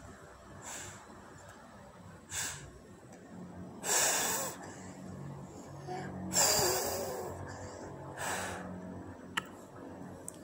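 A young child blowing short puffs of breath at a small flower sprig close to the microphone, about five puffs, the loudest about four and six and a half seconds in.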